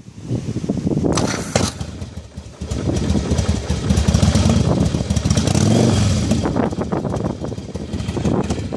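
1994 Yamaha Virago's V-twin engine running and revved: a few short throttle blips in the first couple of seconds, then held at higher revs for a few seconds before easing back.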